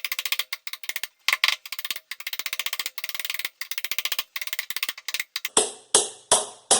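Rapid, irregular metallic clicking from a ratchet worked back and forth on the wrench that is loosening the corroded water heater element. From about five and a half seconds in, a steady beat of shaker-like strokes comes in, about three a second.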